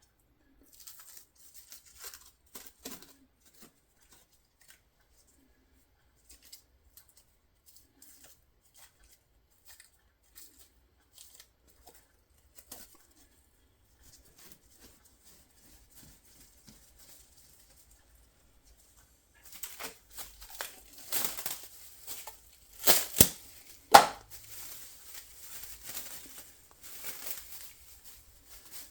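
Cling film being pulled off the roll and crinkled: faint rustling at first, then louder crackling and tearing from about two-thirds of the way in, with two sharp snaps close together.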